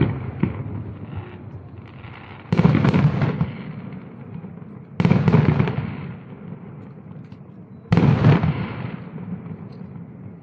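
Aerial firework shells bursting: three loud booms, one about every two and a half seconds, each one rolling and crackling away over about a second. The fading tail of an earlier boom is heard at the start.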